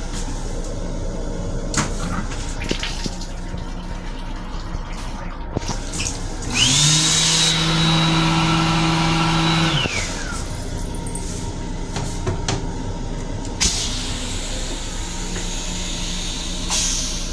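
Restroom faucet in an M7 commuter railcar running into a steel-grey sink for about three seconds, with a steady pump hum and a high whine that rises as it starts and slides down as it stops.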